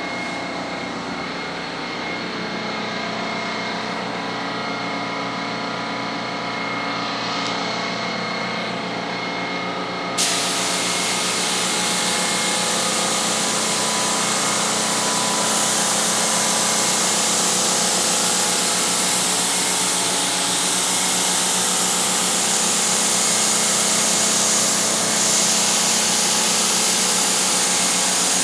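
A motor hums steadily. About ten seconds in, a loud hiss of spraying air cuts in and carries on: a paint spray gun being triggered to lay down primer.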